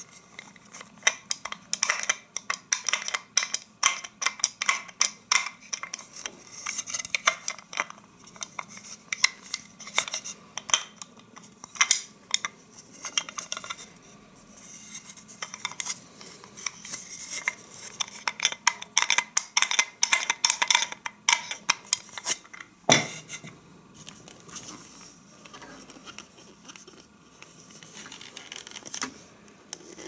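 Irregular sharp clicks and clatter of hard plastic as the clear lid and orange body of a Krups 75 electric coffee grinder are handled, with one sharper knock about 23 seconds in. The grinder's motor is not running.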